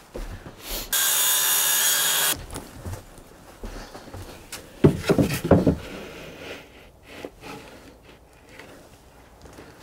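A power saw cutting a plywood panel: one loud, even burst of about a second and a half, starting and stopping abruptly. Afterwards the plywood sheet is handled and fitted into place, with light wooden knocks and rubbing.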